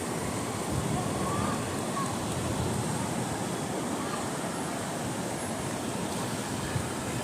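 Sea surf washing steadily onto the beach, a continuous rushing noise with no distinct breaks.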